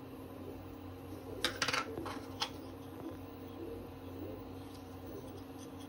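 A few light clicks and taps of hard 3D-printed PLA plastic parts being handled, bunched around one and a half to two and a half seconds in, over a steady background hum.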